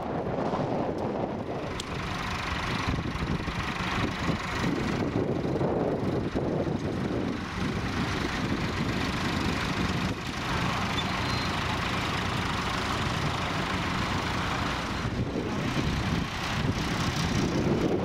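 Diesel tractor engines running steadily under load as they pull ploughs through turf.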